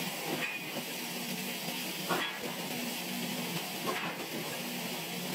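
Forging machinery in a forge shop: a steady hiss with a low hum underneath and a faint knock about every two seconds.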